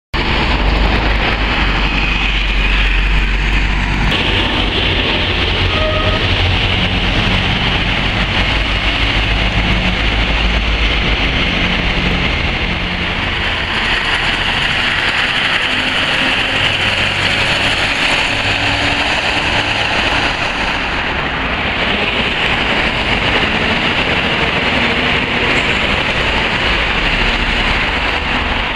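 Heavy diesel lorries and cars passing close by on a wet road: engine rumble under a steady hiss of tyres on wet tarmac.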